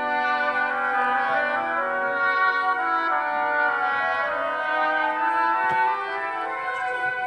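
Instrumental background music: a slow melody of held notes.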